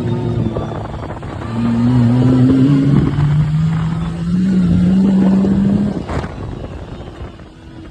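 Off-road vehicle's engine pulling and accelerating, its pitch climbing steadily for several seconds before it eases off about six seconds in.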